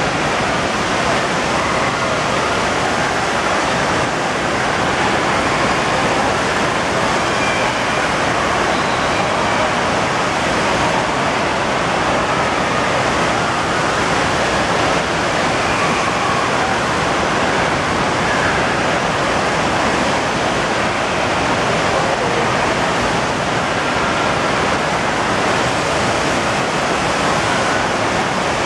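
Steady rush of water from a FlowRider surf simulator: its pumped sheet of water pours continuously over the ride surface.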